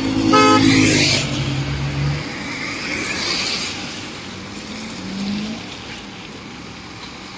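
Cars and a van passing close by on a rain-wet road, their tyres hissing on the wet surface under the engine sound. About half a second in there is a short horn beep, and one engine rises in pitch briefly around five seconds in.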